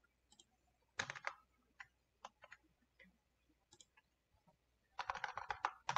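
Computer keyboard keystrokes: a few quick taps about a second in, scattered single clicks, then a quick run of keystrokes near the end.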